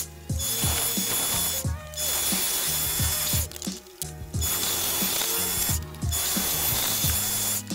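Chinese mini lathe running while turning a white acetal workpiece: a steady mechanical whir and rasp from its motor and gear train over a low hum. It drops out briefly three or four times. Background music with a steady beat plays underneath.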